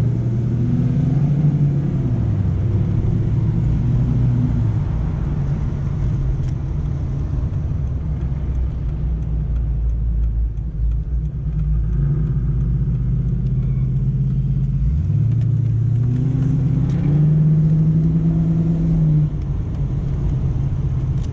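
1994 Ford Mustang GT's 5.0-litre V8 engine pulling under acceleration. Its pitch rises at the start and eases off a few seconds in, then rises again in a second pull and drops back near the end.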